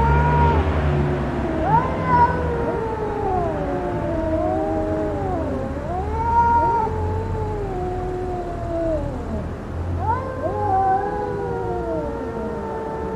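Cats caterwauling at each other in a fight standoff: a few long, drawn-out yowls that rise and fall in pitch, the threatening yowl that comes before a cat fight.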